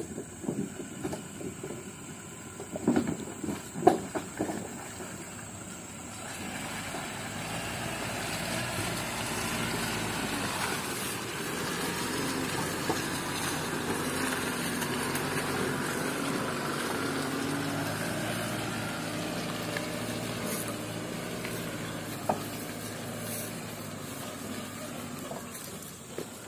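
Toyota Hilux single-cab pickup, loaded with oil palm fruit bunches, driving slowly past on a muddy track. Its engine grows louder from about six seconds in, is loudest in the middle and fades toward the end. A few sharp knocks come in the first seconds as the tyres cross wooden planks.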